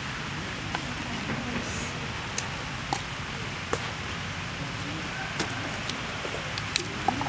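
Garlic bulbs clicking and rustling as they are handled and picked out of a wicker basket: scattered sharp light clicks over a steady background hiss.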